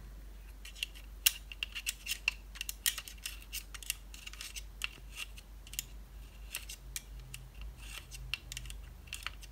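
Light, irregular clicking and ticking, several a second, as a screwdriver turns the head-positioning screw of a 3-inch floppy disk drive by hand, running the freshly oiled head carriage forward.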